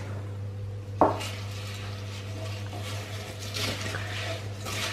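Wooden spoons stirring crispy cereal coated in melted chocolate in glass bowls, a soft scraping and crunching, with a single sharp knock about a second in. A steady low hum runs underneath.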